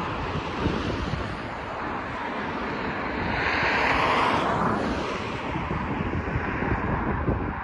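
Wind buffeting the microphone over a steady rush of outdoor noise, with a passing vehicle swelling up and fading away around the middle.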